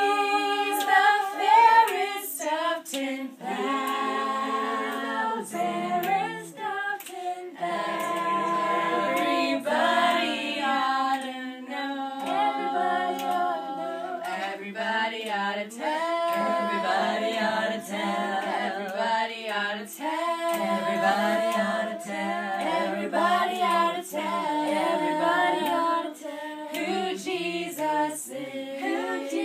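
Several voices singing a song together, unaccompanied.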